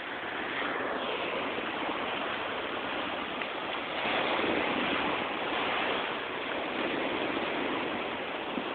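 Small waves washing up and breaking on a sandy shore, a steady rush of surf that swells and eases.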